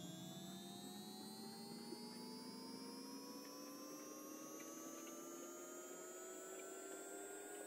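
Small vibrating motor inside an aluminium project box giving a faint hum made of several tones, their pitch rising slowly and steadily.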